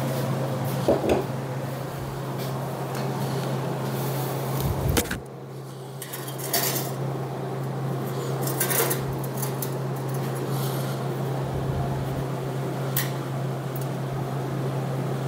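Scattered metal clinks and knocks as a sheet-steel part and a MIG welding gun are handled on a steel welding table, over a steady low hum.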